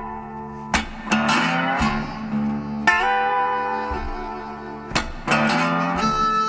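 Background music led by guitar, with notes plucked and strummed every second or two over a steady low note.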